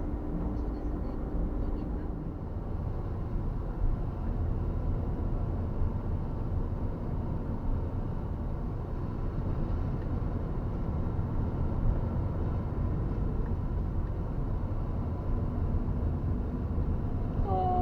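Steady low rumble of a vehicle in motion, with faint steady engine tones.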